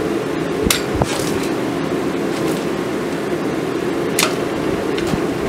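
A few sharp metal clicks, about a second in and again near the end, as a red-hot railroad spike is twisted in a bench vise, over a loud steady drone of workshop machinery.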